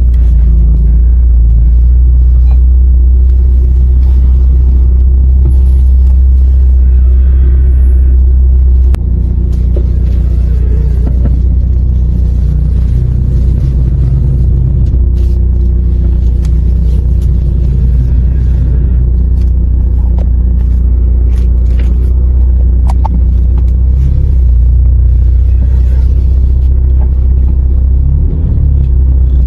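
A car drives with a loud, steady low rumble. Short creaks and clunks come and go as the steering is turned, which the owner takes for a worn strut top-mount (plane) bearing.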